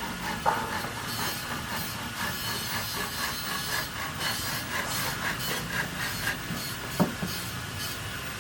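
Irregular scraping or rubbing strokes of building work, with a sharp knock about half a second in and another near seven seconds.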